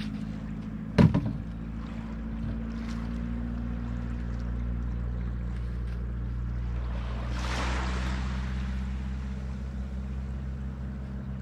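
A small engine runs steadily at a low pitch, as a boat is brought in and hauled up into a boat house. About a second in there is one loud, sharp knock, and a brief hissing rush swells up near the two-thirds mark.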